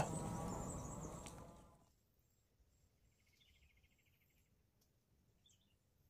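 Faint camera-handling noise that dies away within the first two seconds, then near silence with a few faint, high chirps in the background.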